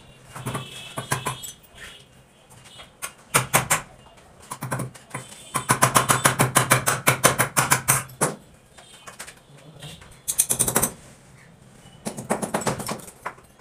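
Bursts of rapid clicking as a plastic bathroom door is fitted into its frame. The longest burst runs about two and a half seconds at roughly ten clicks a second, with shorter bursts before and after it.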